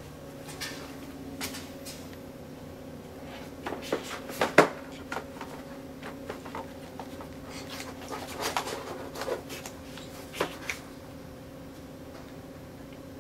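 A cat playing with a rubber flip-flop on a doormat: scattered scuffs, clicks and knocks as it paws and bites the sandal, the loudest a sharp knock about four and a half seconds in, with a steady low hum underneath.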